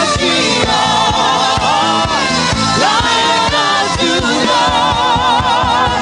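Gospel worship music: singing with a wavering vibrato over a band with a steady drum beat.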